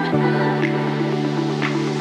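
Electronic background music: sustained synth chords with a sharp, snare-like hit about once a second.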